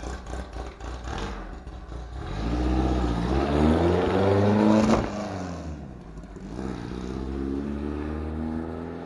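A 1964 Volkswagen Beetle engine idling unevenly, then revved up over about three seconds and dropping back sharply about five seconds in, followed by a second, gentler rev that eases off near the end.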